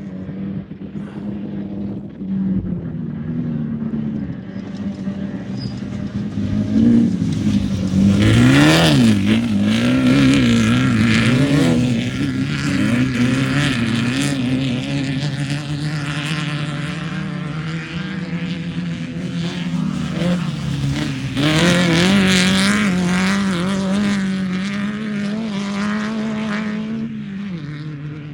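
Race UTV engine running hard, its pitch rising and falling several times about a third of the way in, with two loud rushes of noise, one about 8 seconds in and one about 21 seconds in. The engine note drops near the end.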